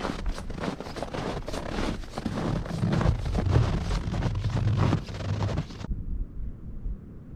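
Strong wind buffeting the camera microphone in gusts, with a low rumble. About six seconds in, the hiss cuts off abruptly, leaving a fainter low rush.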